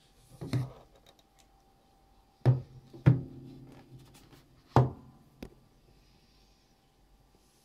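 A few dull knocks and thumps, about five in all, the loudest a little after two and a half, three and just under five seconds in. The one at about three seconds is followed by a short low ringing.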